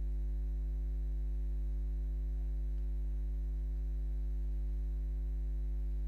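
Steady electrical mains hum: a low 50 Hz buzz with a ladder of overtones above it, unchanging throughout.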